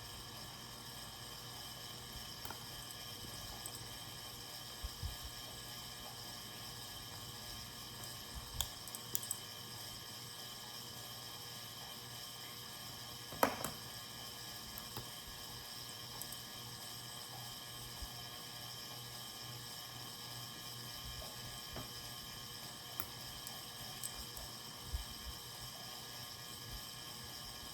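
Steady low hum of a household heating and cooling fan, with scattered small clicks and taps as a light switch plate cover is handled and worked, and one sharper knock about halfway through.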